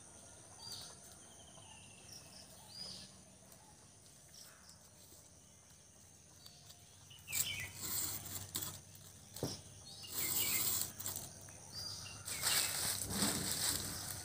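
A few faint bird chirps over quiet outdoor background, then from about seven seconds in the dry rustling, crackling and snapping of dry palm-frond sticks being handled and broken, with one sharp snap.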